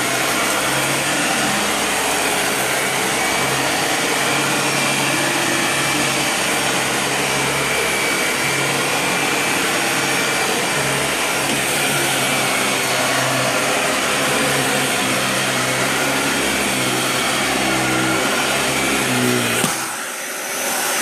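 Dyson DC40 ball upright vacuum cleaner running on its low suction setting as it is pushed over carpet. It gives a steady motor noise with a low hum that rises and falls as the head moves. Near the end the sound drops and the low hum stops.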